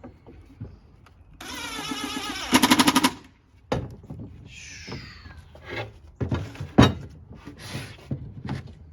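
A power screwdriver or drill running for about a second, then breaking into a rapid rattling clatter as it drives a screw into plywood. After it come several separate knocks and clicks of wood and tools being handled.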